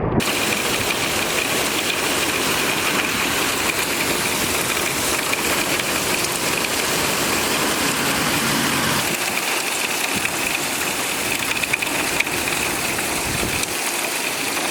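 Heavy thunderstorm rain pouring down in a steady, dense hiss that starts suddenly.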